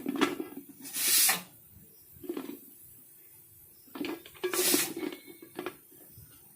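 A pressure cooker and its parts being handled: scattered metal clicks and knocks, with two brief scraping or rustling hisses, one about a second in and one near five seconds.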